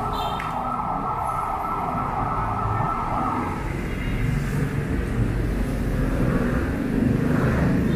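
Road traffic on a busy city street: a steady low rumble of passing vehicles, with a hiss that stops about three and a half seconds in, and a vehicle growing louder near the end.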